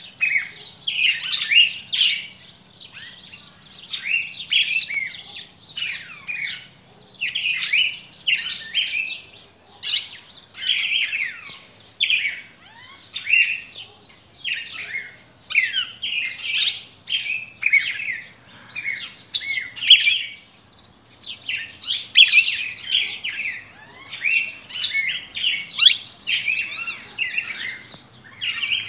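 Cardinals singing: a steady run of short, varied whistled and chirping song phrases, one after another every second or so with only brief pauses.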